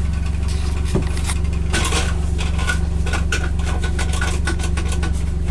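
The three-cylinder gasoline engine of a John Deere XUV835M Gator idling steadily, with a run of light clicks and rattles on top from about a second in.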